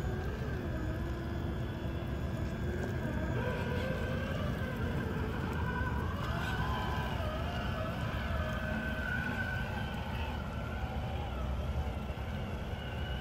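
Electric motor and geartrain of a Traxxas TRX-4 K5 Blazer RC crawler whining as it crawls, the pitch wavering up and down with the throttle, over a steady low rumble.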